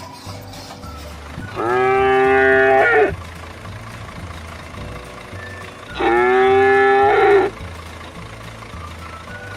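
A cow mooing twice, two long, loud, steady moos about four seconds apart, over a low throbbing hum.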